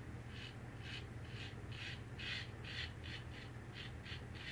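Safety razor with a lather catcher scraping through stubble in short, quick strokes, about two to three a second, a scratchy rasp with each stroke on an across-the-grain pass. The old razor is 'talking' audibly as it cuts. A faint steady hum runs underneath.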